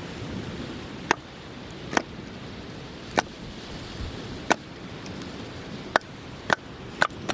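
Firewood being split by hand: seven sharp chopping strikes, roughly one a second and closer together near the end, over a steady background rush.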